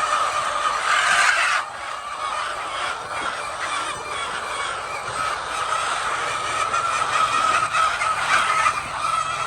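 A large flock of laying hens clucking and calling continuously, many voices overlapping into a steady din.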